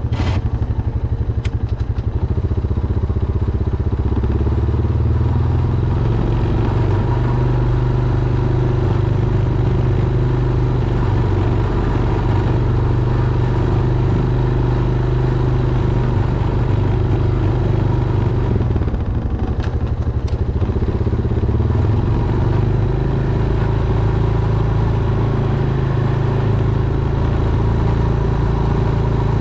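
Honda Foreman ATV's single-cylinder engine running steadily under load while plowing snow, its pitch and load shifting a little now and then. A few short sharp knocks near the start and a couple more about two-thirds of the way through.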